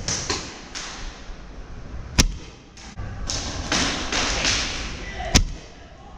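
Sharp cracks of paintball fire, two single shots about three seconds apart, with stretches of hissy noise between them.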